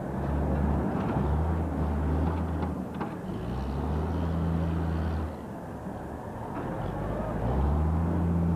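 Diesel engine of heavy earthmoving machinery revving in repeated surges, each lasting one to two seconds and then dropping back, over a steady street background.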